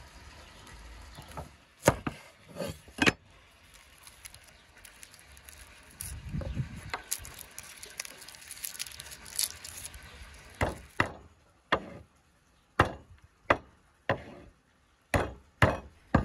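A cleaver knocking a few times on a wooden cutting board. Then the papery crackle of a garlic bulb being broken apart into cloves by hand. Then a run of sharp whacks, about nine over the last six seconds, as the flat of the cleaver smashes garlic cloves on the board.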